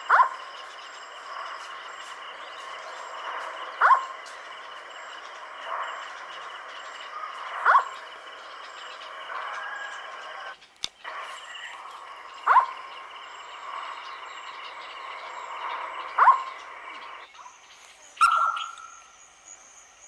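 Indian scops owl calling: a single short, slightly falling 'whuk' note repeated about every four seconds, five times, with a different, longer note near the end.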